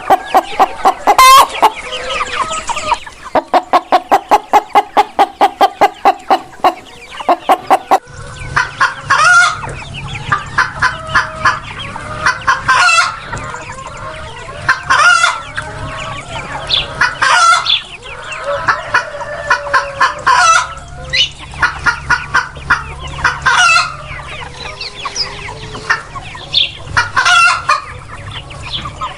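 Chickens clucking and calling. First comes a fast, even run of clucks, about five a second. About eight seconds in the recording changes: short, repeated calls come every two seconds or so over a low steady hum.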